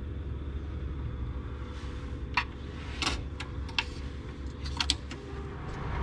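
Cash machine clicking a few times as it finishes the transaction and pushes the card back out of the slot, over a steady low rumble.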